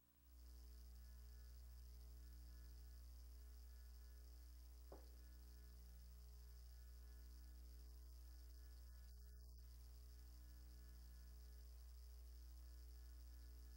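Near silence with a steady low electrical mains hum on the sound feed, and one faint click about five seconds in.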